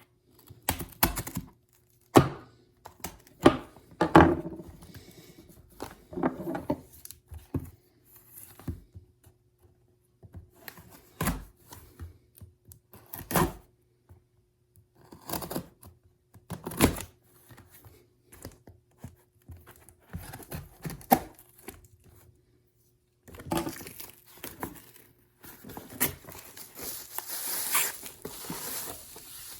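Packing tape being peeled and ripped off a cardboard box in short, sharp rips at irregular intervals, with handling knocks in between; a longer, denser stretch of ripping comes near the end.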